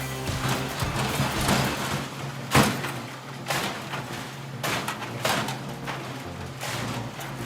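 Music over a low steady drone, broken by a series of sharp knocks and bangs, the loudest about two and a half seconds in.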